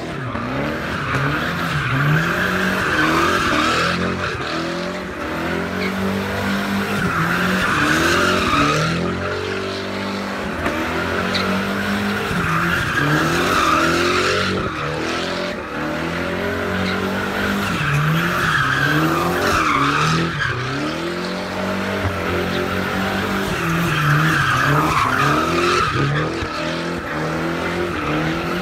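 A car doing donuts. Its engine revs up and falls back over and over, every second or two, while the tyres squeal without a break as they spin and slide on the pavement.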